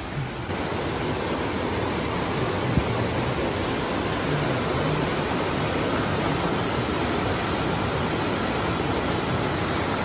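Steady, even rush of flowing water, with one sharp tick just under three seconds in.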